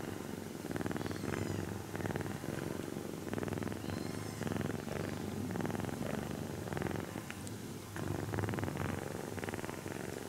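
Sleeping kitten purring, close up, the purr swelling and easing with each breath in and out.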